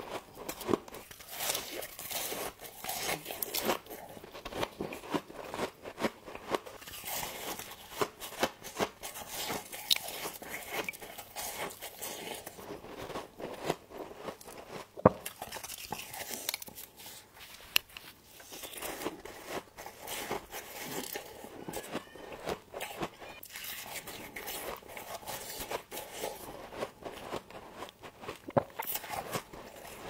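Close-miked biting and chewing of crunchy frost: a steady run of crisp crunches, with a few sharper loud cracks about halfway through.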